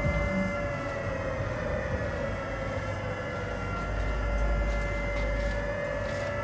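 Civil defense air-raid siren sounding a held wail, its pitch sagging slightly and then rising again near the end, over a low rumble.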